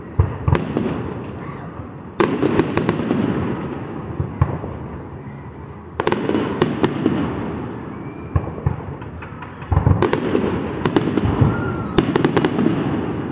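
Aerial fireworks shells bursting overhead, a loud boom every two to four seconds, each dying away in a long rumble and peppered with sharp crackling pops.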